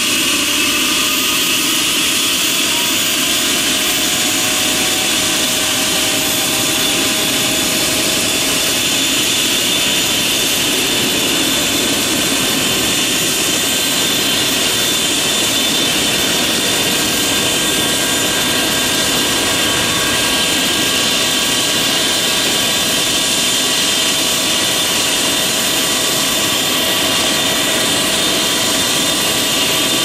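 A Eurocopter EC120B Colibri's Arrius turboshaft engine and rotors running on the ground before lift-off. A steady turbine whine sits over a rushing noise, its pitch rising slightly over the first several seconds and then holding.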